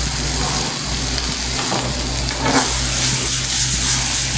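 Halved cherry tomatoes, onion and green chilli sizzling in olive oil in a stainless steel frying pan, the hiss growing a little louder about halfway through as the pan is stirred and tossed, with a few light clicks of food and pan. A steady low hum runs underneath.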